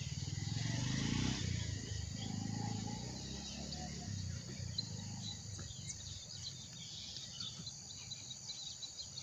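Background ambience: a low hum for the first couple of seconds, then many faint, quick high-pitched chirps from about four seconds in.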